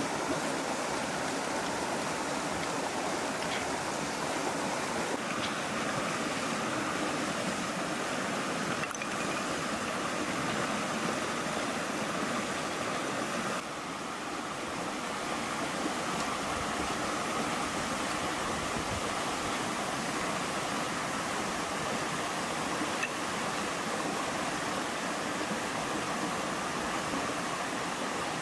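Rushing water of a shallow rocky stream pouring over a small cascade, a steady noisy rush that briefly drops a little in level about halfway through.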